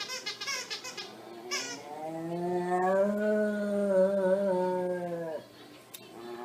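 Dog giving one long, low, moo-like howl lasting about three and a half seconds, after a few short high-pitched cries at the start.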